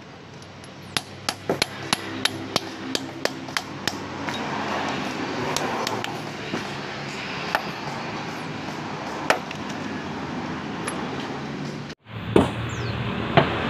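Hammer striking a chisel set into a rounded boulder to split it: a quick run of sharp metallic taps, about three a second, in the first few seconds, then single strikes every second or two over a steady background noise. Near the end the background changes abruptly and one more sharp knock follows.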